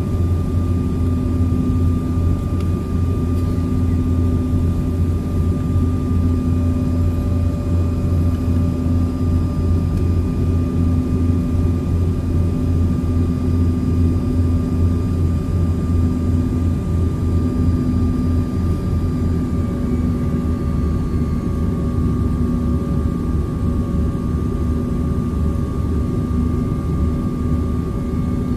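Jet airliner cabin noise in flight: a steady drone of engines and rushing air, with several constant hums layered over it. Heard from inside the cabin at a window seat.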